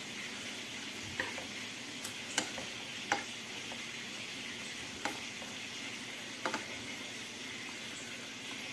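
Sweet pineapple sauce sizzling and bubbling in a frying pan around a whole braising chicken, with a metal spoon clinking against the pan several times as the sauce is ladled over the meat.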